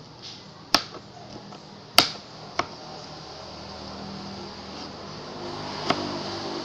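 Kitchen knife knocking on a cutting board while chopping pineapple into small pieces: four sharp knocks, the loudest about two seconds in.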